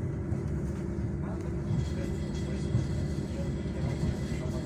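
Suburban electric train (elektrichka) in motion, heard from inside the passenger carriage: a steady low rumble of wheels and running gear on the rails.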